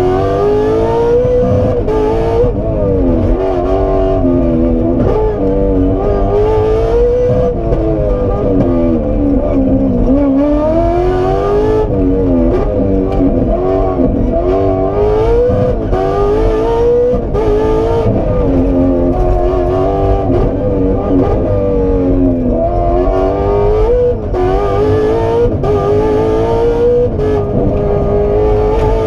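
Aston Martin Vantage rally car's engine heard from inside the cabin, revving hard and dropping back over and over as it goes through gear changes and corners, over a steady low rumble of road and drivetrain.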